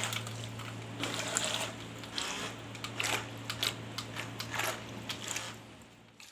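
Small DC motor of a homemade thermocol toy boat running with a steady hum while its propeller churns and splashes the water in a basin, with irregular crackly splashes throughout. The sound fades away near the end.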